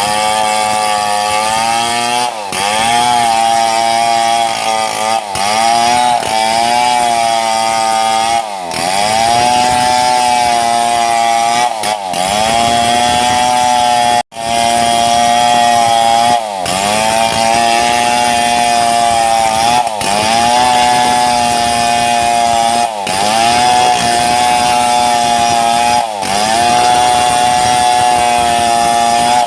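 Two-stroke chainsaw cutting into mahogany at high revs. Every few seconds the engine pitch sags as the bar is pushed into the wood, then climbs back. There is a very brief break in the sound about halfway through.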